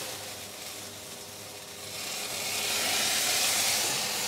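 Hot water poured from a kettle into a pan in the bottom of a 230 °C oven, hissing as it flashes to steam. The hiss swells in the second half.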